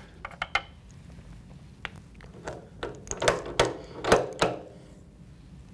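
A few light handling clicks, then about halfway through a quick run of clicks, clunks and short rattles as an RCBS Uniflow powder measure is worked to throw a powder charge into a brass case held under its drop tube.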